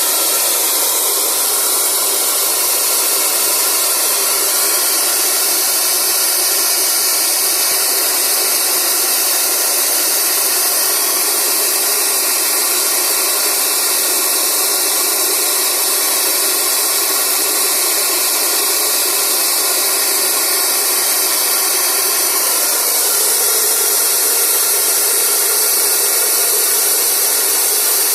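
Air compressor flushing a borewell: a steady, loud rushing hiss of air and water, with the even drone of the running machine underneath.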